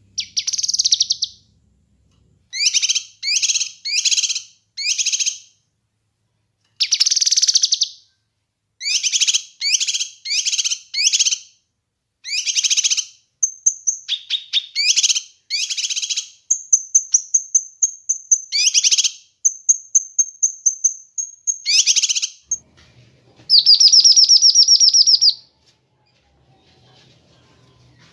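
Kinoi (lesser green leafbird) singing a loud, rapid series of short chattering phrases. Long thin high whistles come in midway, and a longer fast trill near the end is the loudest part.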